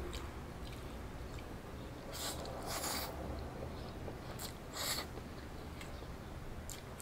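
A person eating noodles close to the microphone: chewing, with a few short hissing mouth sounds, the loudest about three and five seconds in.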